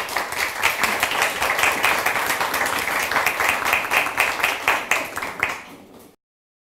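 Audience applause: a dense, fast patter of many hands clapping. It thins and fades about five and a half seconds in, then cuts off to silence.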